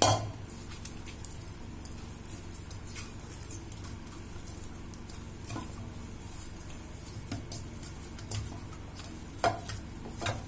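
Hand kneading a stiff methi dough in a stainless steel bowl: soft squishing and rubbing, with a sharp knock against the bowl right at the start and scattered clicks, more of them near the end.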